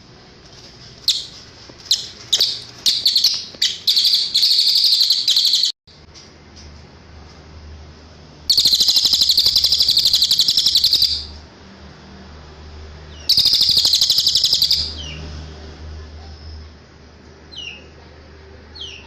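Cililin songbird singing high, rapid trills. A run of short sharp chirps builds into a fast trill over the first five seconds, and there is a sudden break about six seconds in. Two long trills follow, of about two and a half seconds and a second and a half, then a few thin falling notes near the end.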